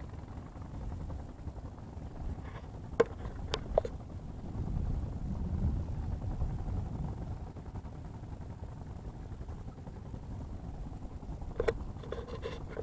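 Low rumbling wind noise on a phone microphone, swelling about five seconds in, with a few sharp clicks about three to four seconds in and again near the end.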